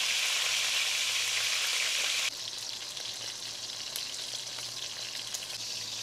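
Whole red grouse browning in hot butter and olive oil in a cast-iron pot, sizzling steadily. A little over two seconds in, the sizzle drops abruptly to a quieter level.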